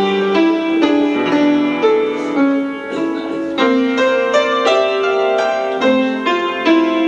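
Background piano music: a melody of single struck notes, a few a second, each fading after it is played.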